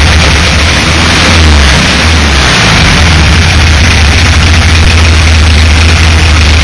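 Air-cooled 1600cc VW Type 2 bus flat-four engine running loudly. It has a knocking noise that the owner thinks may come from a loose cooling fan, though he is not sure.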